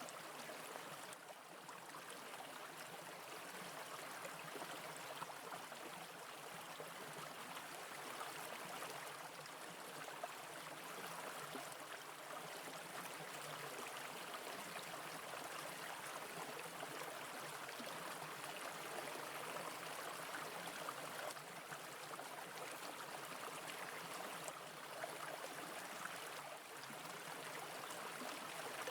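Brook water flowing steadily over rocks, an even rushing burble.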